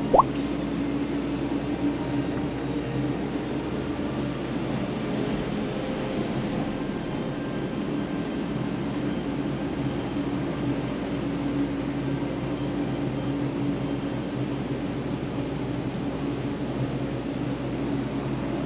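Steady mechanical hum with a few low held tones, unchanging throughout. Right at the start, a short sharp squeak rising in pitch.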